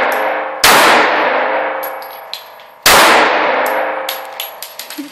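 Two handgun shots about two seconds apart, each a sharp crack followed by a long reverberant ring-out in the enclosed indoor range, with light clicks between them.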